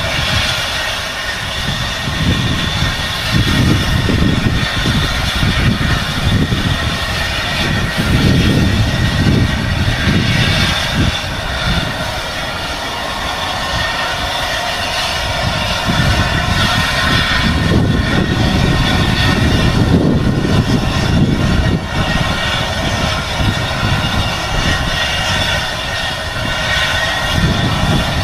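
A steam-hauled train on the move, most likely the South African Railways Class 24 steam locomotive with its wagons: a loud, continuous running noise with a low rumble that swells and fades every few seconds.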